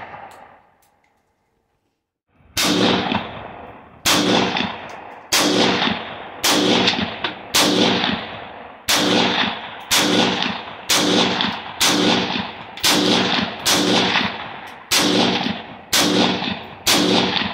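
Gunshots fired at a pumpkin target. The first shot is already dying away at the start. After about two seconds of quiet, a steady string of about a dozen shots follows, roughly one a second, each trailing off in a short echo.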